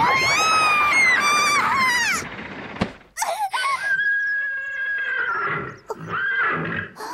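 A girl screams, high-pitched and wavering, for about two seconds, falling off at the end. Shorter cries follow, including one long held high note in the middle.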